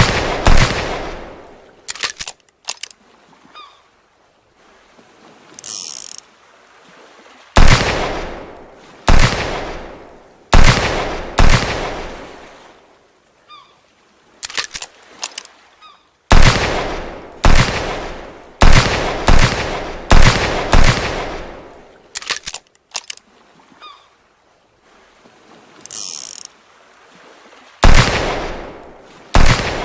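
Revolver gunshot sound effect: volleys of two to six shots, each with a long echoing tail, separated by small metallic clicks like a hammer being cocked and the cylinder turning. Twice a brief high pitched squeak sounds in the pauses, and the whole sequence repeats about every 20 seconds.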